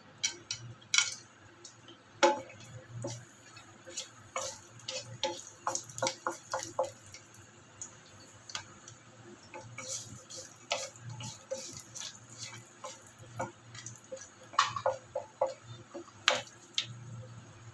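Whole garam masala spices (cardamom pods, cloves) frying in hot oil in a frying pan, crackling and popping in irregular sharp ticks, with a wooden spatula stirring them near the end.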